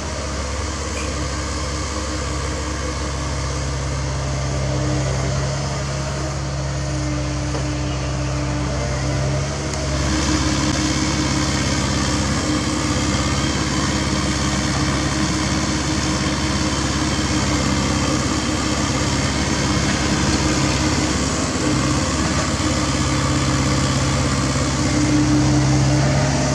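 Caterpillar mini excavator's diesel engine running steadily with a constant hum, getting louder about ten seconds in as it works its hydraulics digging soil.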